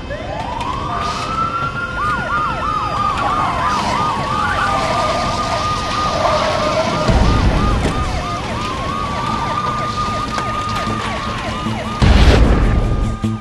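Several emergency-vehicle sirens sounding over one another: one winds slowly up in pitch and falls, while others yelp in quick repeated sweeps. A heavy low rumble builds beneath them and is loudest near the end.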